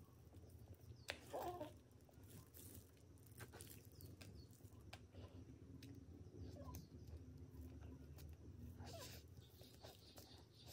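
Faint close-up eating sounds of soft cream cake: scattered lip smacks and wet mouth clicks, with a louder mouth sound about a second in.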